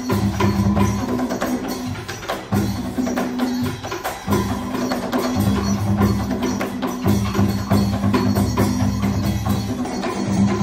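Traditional Vietnamese water-puppet ensemble playing percussion-led music: quick wood-block clicks over low drumming that comes in phrases a second or two long with short breaks between them.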